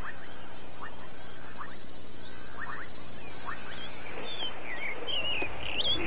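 A night chorus at a waterhole: insects keep up a steady, high, finely pulsing trill, with frogs giving short scattered chirps. In the last second or two, a few wavering bird calls come in.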